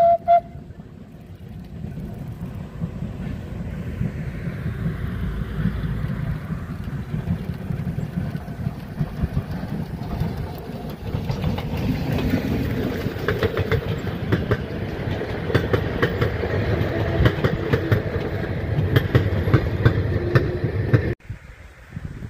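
Narrow-gauge steam train passing: two short whistle toots at the very start, then the locomotive's running and the wheels clattering over rail joints, growing louder and busier as the coaches roll by. The sound cuts off abruptly near the end.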